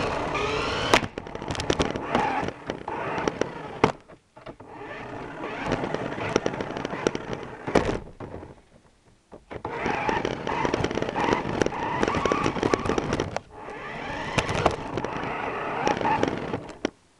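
Small RC car driving on a hard floor: its electric motor whirs while the wheels and plastic body rattle and clatter. It runs in four spurts with short pauses between them and stops near the end.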